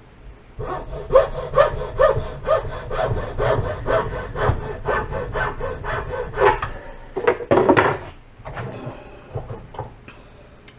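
Hand saw cutting through a piece of hose in steady back-and-forth strokes, about two a second, then a few louder strokes and some scattered knocks of handling.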